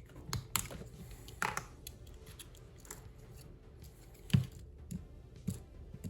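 Sharp metal clicks and snaps from a Victorinox Swiss Army knife's tools being handled and worked open and shut. There are about six, spaced irregularly, and the loudest comes about four seconds in.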